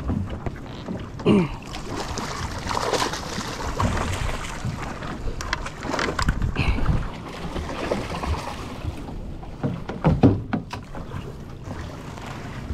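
Wind buffeting the microphone and water noise aboard a small fishing boat, with scattered knocks and clatters.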